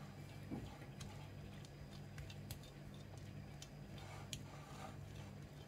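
Faint, scattered light clicks and soft scraping of a metal offset spatula spreading frosting over a cake, over a steady low hum.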